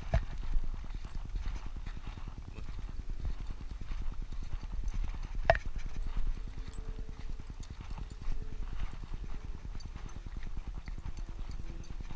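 Steady rhythmic thumps and scuffs of footsteps walking on a dirt trail. The handling noise of a body-worn GoPro jostling with each stride makes it heavy in the low end, and there is a sharp click about five and a half seconds in.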